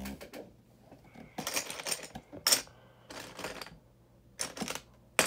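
Plastic LEGO pieces rattling and clicking as they are rummaged through and handled, in several short bursts with a few sharp clicks.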